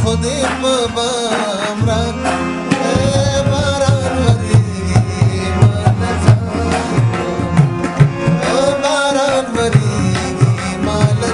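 Pashto ghazal music: a tabla plays a steady beat under a wavering melody line, with the drum strokes coming in strongly about three seconds in.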